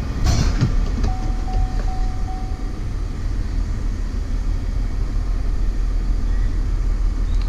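Steady low engine rumble of a running vehicle or machine, with four short quick beeps about a second in.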